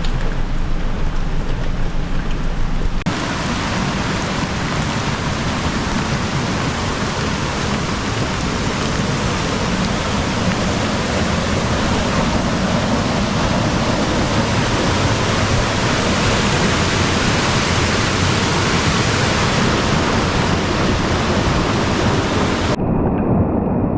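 Light rain on a moving car with road rumble for about three seconds, then an abrupt change to a steady, loud rush of water spilling over a small dam, which cuts off near the end.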